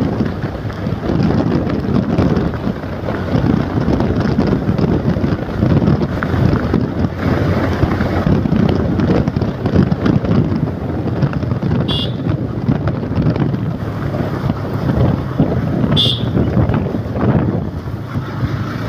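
Wind buffeting the microphone over a motorcycle engine running steadily at road speed. Twice, four seconds apart, a brief high beep cuts through.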